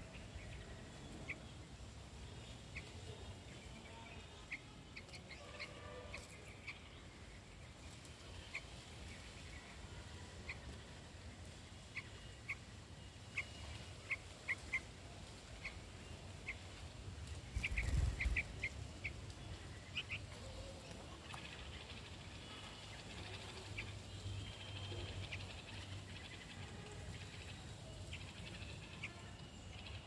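Young bulbul giving short, sharp, high chirps, repeated at irregular intervals, with a quick cluster of them a little past halfway. A brief low rumble comes at the same moment as that cluster.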